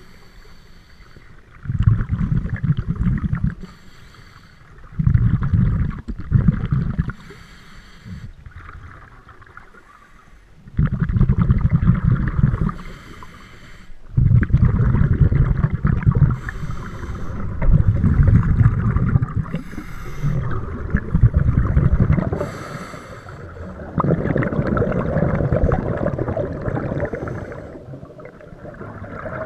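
Scuba diver breathing through a regulator underwater: a short hiss on each inhale and a longer, low bubbling rumble of exhaust bubbles on each exhale, repeating every few seconds.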